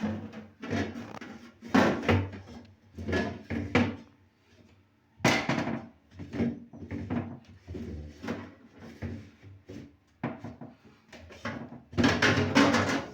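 Refrigerator shelves and drawers being slid out and handled: a string of irregular knocks, scrapes and rattles, loudest about two seconds in and again near the end.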